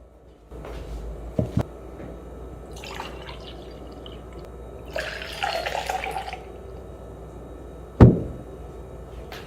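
Water running and splashing in a kitchen sink, with a few sharp clunks; the loudest clunk comes about eight seconds in.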